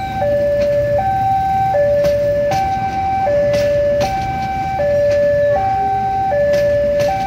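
Level-crossing electronic warning siren sounding a steady two-tone alarm, alternating high and low notes of about three-quarters of a second each. It plays over the rumble of a passenger train passing, with occasional clacks of wheels on the rails.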